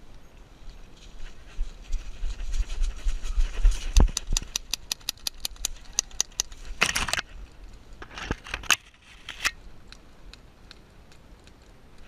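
Airsoft gun firing a quick string of shots, sharp clicks about five a second lasting a couple of seconds, with scattered single shots and short rustling bursts after.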